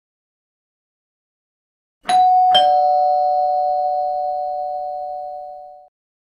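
Two-note ding-dong doorbell chime: about two seconds in, a higher note and then a lower one half a second later, both ringing and fading away over about three seconds. The visitor is arriving at the door.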